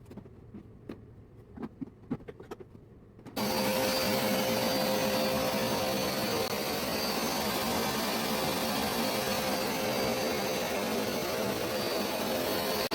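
A Hoover SmartWash carpet cleaner starting up suddenly about three seconds in and running steadily: a rush of suction with a constant motor tone. Before it starts there are only a few light clicks.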